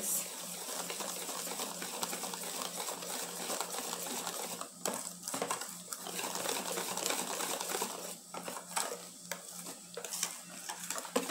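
Wire whisk beating a thin batter in a stainless steel bowl: a fast, steady clatter of the wires against the metal, with a few brief pauses.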